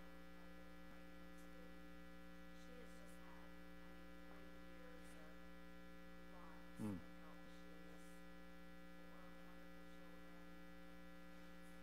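Steady electrical mains hum on the sound line, with faint, distant voices. About seven seconds in there is one short, louder sound that falls in pitch.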